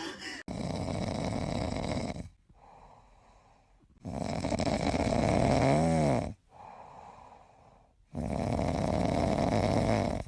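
A squirrel snoring in a regular rhythm: three loud, noisy snores about every four seconds, each lasting about two seconds, with quiet breaths between them. The second snore ends with a brief whistling tone.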